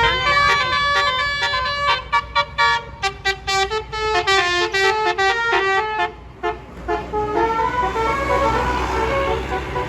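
Bus's Basuri multi-tone telolet horn playing a tune of short notes that step up and down in pitch, choppy and quick in the middle, with a brief gap about six and a half seconds in before more notes. The bus's engine runs underneath.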